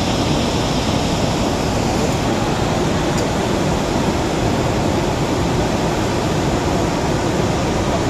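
Bharachukki Falls on the Kaveri river: a loud, steady rush of a large volume of water pouring down the rock faces.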